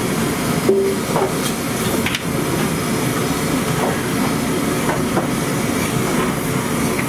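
Paneer cubes deep-frying in a wide wok of hot oil over a gas burner: a steady sizzling hiss over a low rumble, with a few faint knocks.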